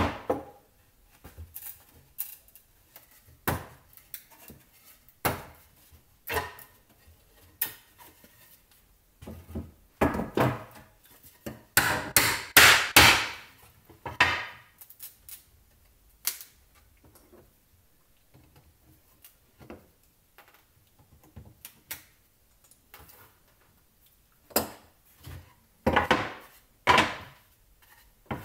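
Wooden boards knocking and clattering on a wooden workbench as a dowelled butt joint is wiggled apart and the pieces are set down. The knocks are scattered, with a dense run of them about twelve seconds in and two loud knocks near the end.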